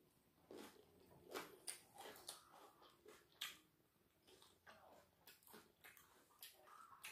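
Faint close-up chewing and mouth smacks of a person eating sauced neck bones by hand, a string of short, irregular clicks.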